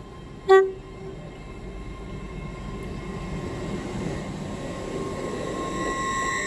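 An LNER Azuma high-speed train gives one short toot on its horn about half a second in, then runs past along the platform. Its running noise and a steady whine grow louder as the carriages go by.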